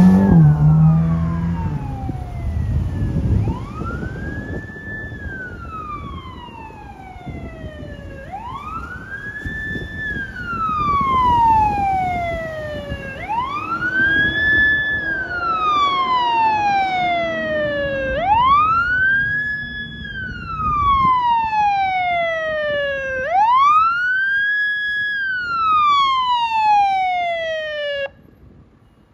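Emergency vehicle's electronic siren on wail: about five slow cycles, each rising quickly, holding briefly at the top and falling slowly, over a loud engine rumble in the first few seconds. The siren cuts off suddenly near the end.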